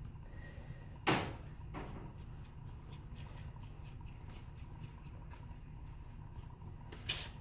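Small clicks and taps from a precision screwdriver working the tiny back-case screws of a smartwatch, with a sharp tap about a second in, faint ticks in the middle and another tap near the end.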